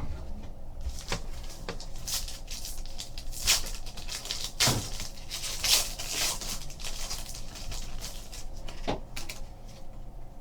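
Plastic trading card pack being crinkled and torn open, then the cards inside being handled, in a run of irregular rustles and crackles with a few louder crinkles partway through.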